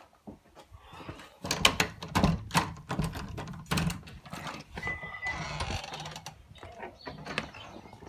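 Door being opened by its knob: a series of sharp latch and handle clicks and knocks, a brief squeak about five seconds in, then softer handling noise.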